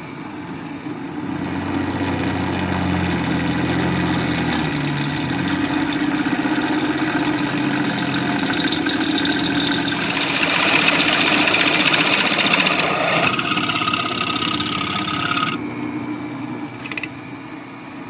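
Drill press running, its bit cutting into square metal tubing held in a jig. The sound grows louder and brighter for a few seconds past the middle, then drops off suddenly and fades.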